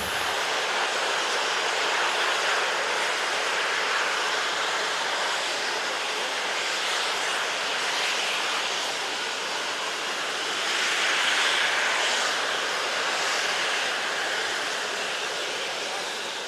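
Steam locomotive's safety valves blowing off: a steady, loud hiss of steam escaping from the boiler, a sign that it has reached full working pressure. The hiss swells a little about two-thirds of the way through.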